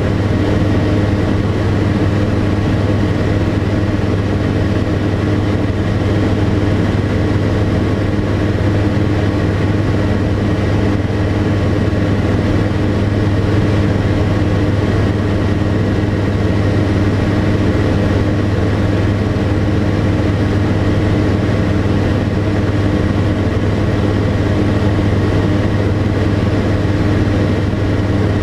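Tecnam P92 Echo Super light aircraft's Rotax 912 flat-four engine and propeller droning steadily in flight, holding an even pitch with no change in power.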